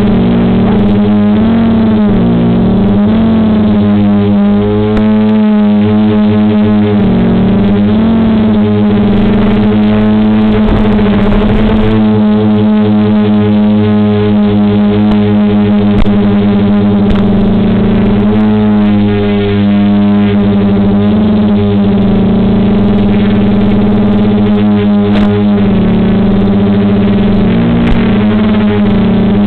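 DJI F450 quadcopter's 2212 920KV motors and 9540 propellers hovering in position hold, a steady loud hum whose pitch wavers up and down every few seconds as the flight controller corrects the motors.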